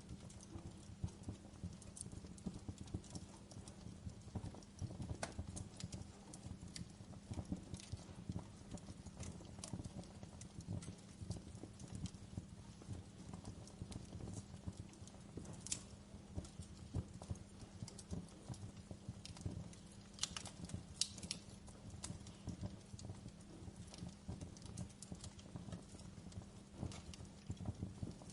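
Wood campfire burning, with irregular crackles and sharp pops over a low rumble from the flames.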